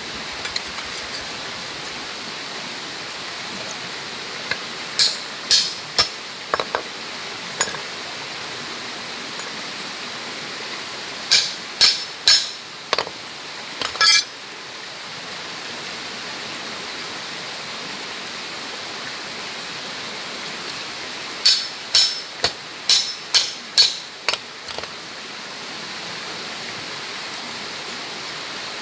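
Light metal-on-metal taps and clinks as a thin wire is worked against the steel head of a claw hammer, in three groups of several quick strikes, with a steady hiss throughout.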